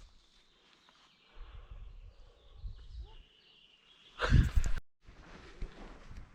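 Outdoor river-canyon ambience with wind buffeting the microphone in low, uneven gusts, and a loud, brief burst of noise a little past four seconds in that cuts off suddenly.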